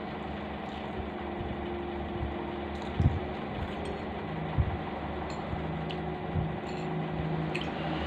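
A person eating fried instant noodles: chewing, with two soft thumps about three and four and a half seconds in and a few faint fork clicks against the plate later on. A steady background hum runs under it and is the loudest thing most of the time.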